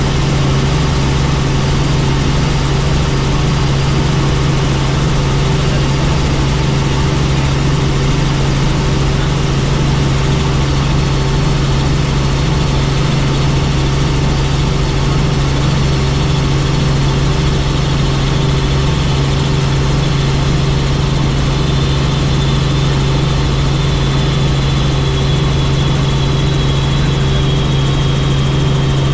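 Helicopter in flight: a loud, unbroken drone of engine and rotors with a strong low hum, and a faint high whine that slowly drops in pitch over the last several seconds.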